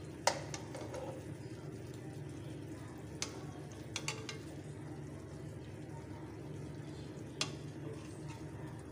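A metal utensil clinking sharply against a kadhai about five times while chicken leg pieces are turned over, over a steady low background noise.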